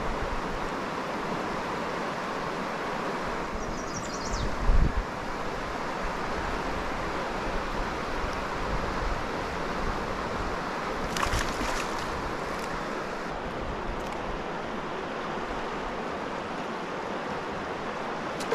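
River rapids rushing steadily. A dull thump about four and a half seconds in, and a few light clicks near the middle.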